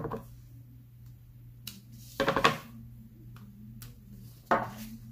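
Rubber stamp on a clear acrylic block being inked on an ink pad and pressed onto cardstock: three short dull taps about two seconds apart, with a few faint clicks between them, over a low steady hum.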